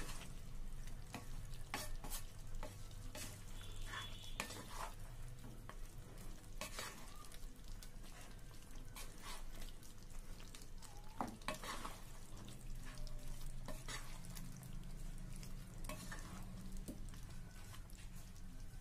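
Wooden spatula stirring chicken pieces in masala in a pan, with irregular scrapes and knocks against the pan, over a steady low hum.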